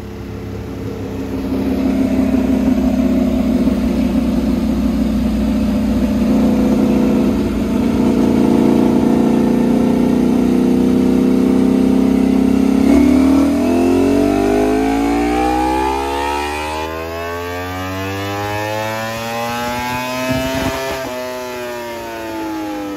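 Ducati Panigale V4R's 999cc 90-degree V4, breathing through a full titanium Akrapovic racing exhaust, running on a chassis dyno. It holds a steady, loud note at first. About 13 s in it climbs steadily in pitch through a full-throttle pull, and near the end the revs fall away as the throttle is shut.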